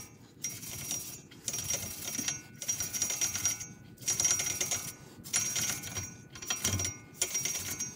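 A stiff brush scrubbing back and forth in repeated strokes, about one a second, with short pauses between them.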